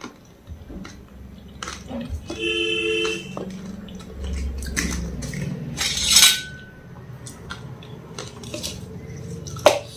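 Stainless steel plate and spoon clinking and clattering as puris are picked from it, with a brief ringing tone about two and a half seconds in and a louder sharp clatter about six seconds in.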